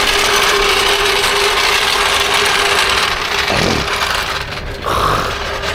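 A power tool's motor running steadily with a whine, jacking up a pickup truck. It stops about three seconds in, and a couple of shorter mechanical noises follow.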